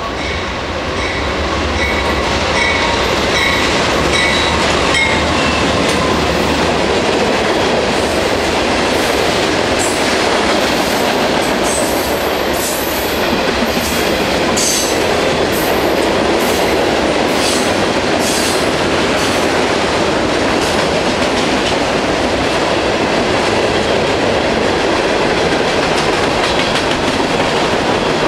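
CSX freight train running through at speed: the low rumble of the diesel locomotives as they pass in the first few seconds, then a long string of freight cars clattering and rumbling by, with sharp high clicks and squeals from the wheels in the middle.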